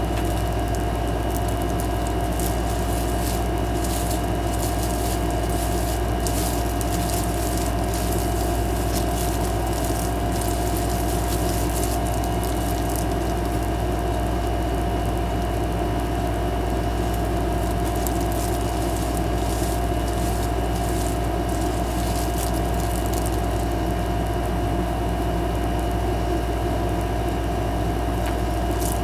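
A steady machine hum with constant whining tones over it, like a motor running, with faint crackles scattered through it.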